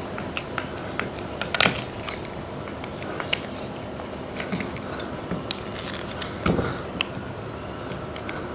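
Old ceiling battens being worked loose and taken out: scattered clicks and knocks, with louder cracks about a second and a half in and again around six and seven seconds in.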